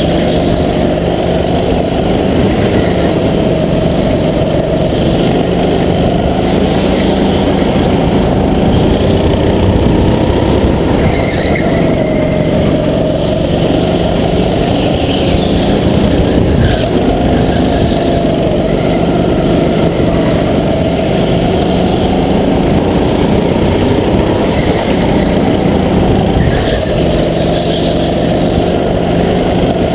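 Go-kart engine running hard through a lap, its pitch dipping and rising again over a few seconds as the kart brakes into corners and accelerates out. It is heard close up from the driver's helmet.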